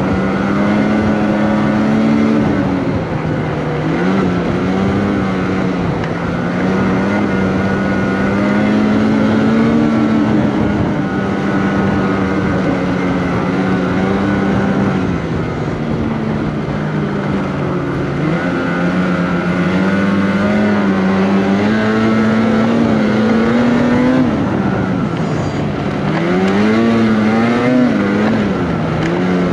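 Polaris Patriot 850 two-stroke twin snowmobile engine running steadily at trail speed. Its pitch holds even for long stretches, with a few short dips and climbs as the throttle eases off and opens again, most of them near the end.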